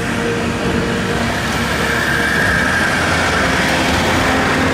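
A Jeep Wrangler driving slowly along a dirt track toward the listener, engine running and tyres crunching over the ground, growing louder as it comes close.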